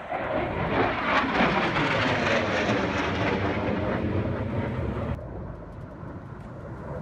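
Display aircraft flying past overhead: a loud roar with a sweeping, shifting tone. It drops off abruptly about five seconds in, leaving a fainter distant aircraft drone.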